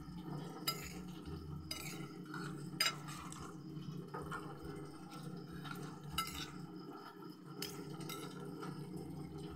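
Metal spoon and fork clinking and scraping against a glass plate of cooked vegetables, a handful of short sharp clinks over a steady low hum.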